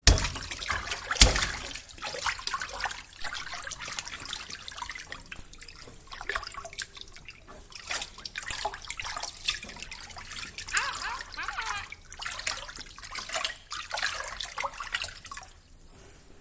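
Water splashing and trickling: a sharp hit about a second in, then irregular dripping, gurgling and bubbling that fades out near the end.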